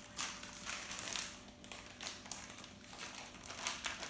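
Plastic packaging crinkling and rustling in short irregular bursts as it is handled.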